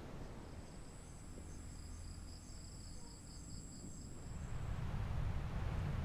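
Insects chirping in a high, pulsing trill over a low rumble. About four seconds in the trill stops and a wash of sea surf swells up.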